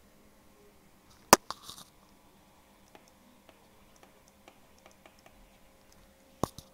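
Pen stylus tapping on a digital writing tablet while handwriting: a sharp click about a second in with a brief rustle after it, light ticks as the words are written, and another click near the end.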